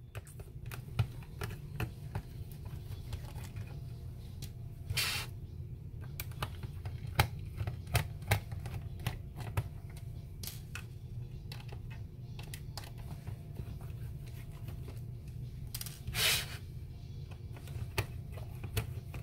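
Scattered small clicks and taps of a plastic LED flood light's housing and a small screwdriver being handled as the light is taken apart, with two short scraping sounds, about five seconds in and about sixteen seconds in.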